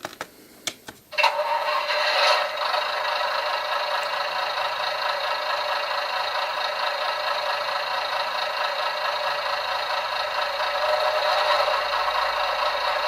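Sound decoder in a Bachmann Class 101 DMU model playing a Howes-recorded diesel engine sound through the model's small speaker. A few clicks, then about a second in the engine sound starts and runs steadily, thin and without bass.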